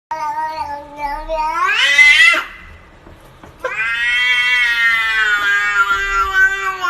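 A cat giving two long, drawn-out yowling meows: the first rises in pitch and breaks off at about two and a half seconds, and the second, starting about a second later, is longer and slowly falls in pitch.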